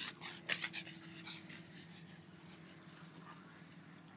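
A dog panting hard, with a few loud noisy breaths in the first second, then quieter.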